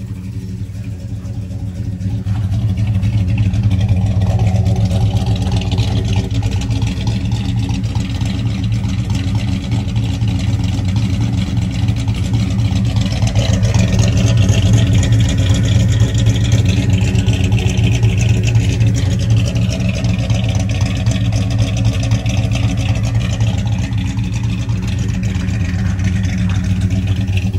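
Ford V8 running steadily at a raised fast idle of about 750 RPM, set high to keep the water pump circulating flush water through the cooling system. It gets louder over the first few seconds, then holds steady.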